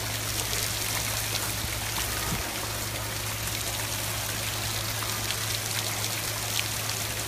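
Steady hiss of rain falling on floodwater, with a few scattered drip ticks and a constant low hum underneath.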